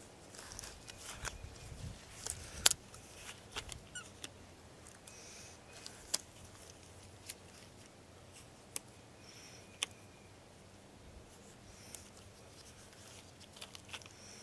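Disposable gloves being pulled on and worked down over the fingers: soft rustling of the glove material with sharp little snaps and clicks scattered through, most of them in the first few seconds and a few more near the end.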